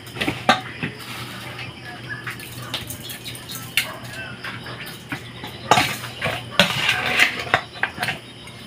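Scattered clinks and clatter of a spoon and a stainless steel bowl being handled, busier about six seconds in.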